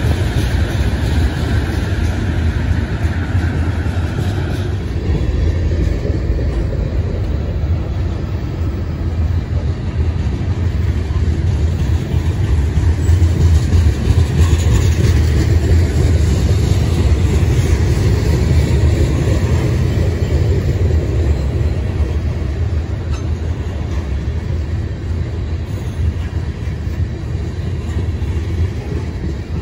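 A train rolling past with a steady, loud rumble of wheels on the rails that swells slightly midway. A high steady tone rides over it for the first four seconds or so.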